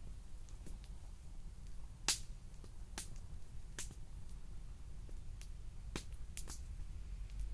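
Wood campfire crackling: sharp, irregular pops over a low steady rumble, the loudest pop about two seconds in.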